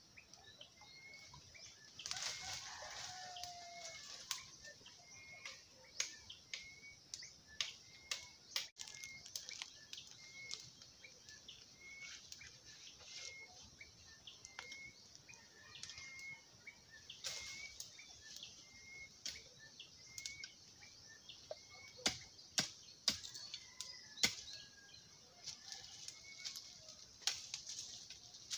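Scattered sharp knocks, cracks and rustling of bamboo stems being cut and handled in a thicket. A short high chirp, likely a bird, repeats about once a second.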